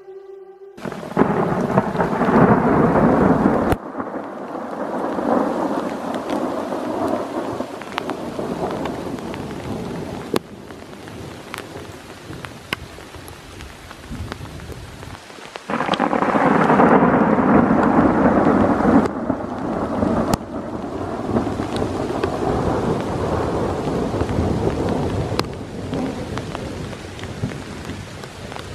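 Thunderstorm: steady rain with two rolls of thunder, one starting about a second in and another about sixteen seconds in, each rumbling for a few seconds. Occasional sharp ticks of drops hitting the recording device.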